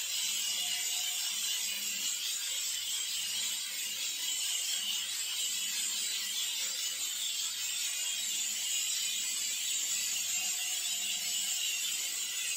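Food sizzling in a pan on a gas stove: a steady hiss.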